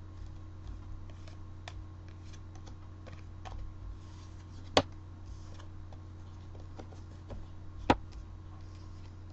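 Trading cards and packs being handled and set down: soft scattered taps and light clicks, a faint rustle in the middle, and two sharper clicks about five and eight seconds in.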